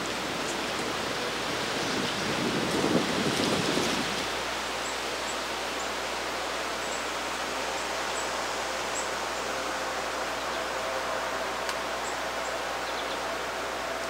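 Steady rushing outdoor ambient noise, with a louder rustling swell about two to four seconds in. A few faint, high, very short chirps, like a small bird's chip notes, come between about five and nine seconds.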